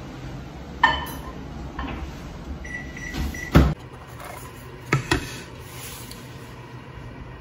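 Microwave oven in use: a click as the door is worked, a short single beep, and a heavy clunk of the door shutting. A few seconds later, a bowl on a plate is set down on a table with two quick knocks.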